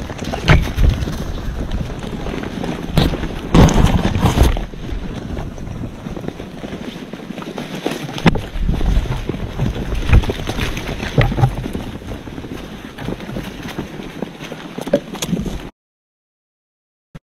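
Wind rumbling on the microphone, with irregular thumps and rustles over it; the sound cuts out completely about a second and a half before the end.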